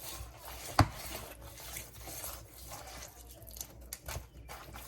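Hands massaging mustard and dried herbs into raw catfish: soft, irregular wet rubbing and patting, with one sharp knock about a second in.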